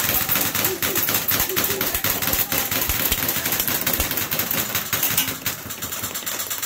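Several airsoft guns firing on full auto: a dense, overlapping rattle of rapid clicks that thins out after about five and a half seconds.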